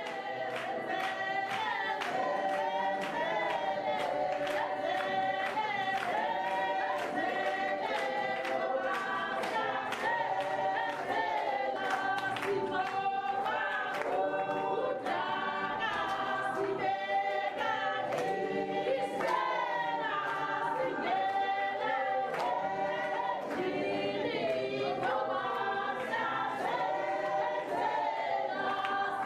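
A choir singing unaccompanied in harmony, with sharp beats keeping a steady rhythm.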